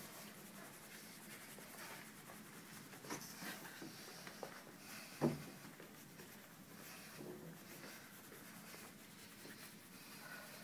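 Quiet scuffing friction of hands rubbing and pressing over clothing on a person's back during a massage. A few faint taps come through, and there is one louder soft knock about five seconds in.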